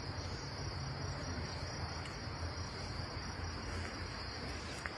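A steady, unbroken high insect chorus, crickets or cicadas, over a low steady rumble, with a faint tick near the end.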